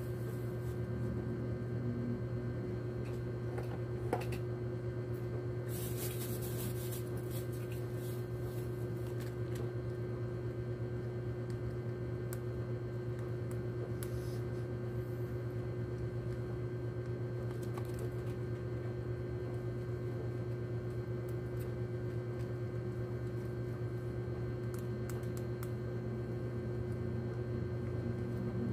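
Steady low electrical hum, like a running motor or appliance, with a few faint scattered clicks and scratches and a brief hissing rustle about six seconds in.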